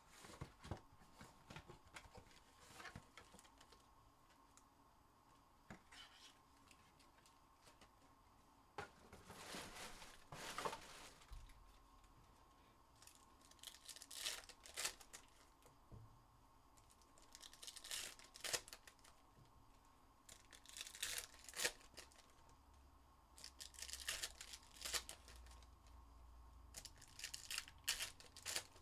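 Foil trading-card packs being torn open one after another, the wrappers crinkling and tearing in short bursts every few seconds, after a few light clicks from the cardboard box lid being opened.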